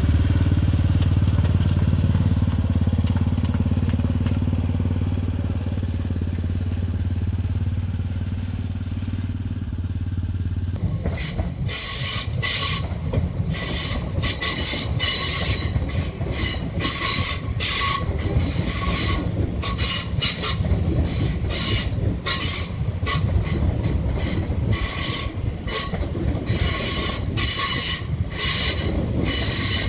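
A steady low hum fades over the first ten seconds or so. Then, about eleven seconds in, a train starts squealing intermittently as its wheels grind on the rails, with shrill ringing tones that start and stop over a rattling rumble.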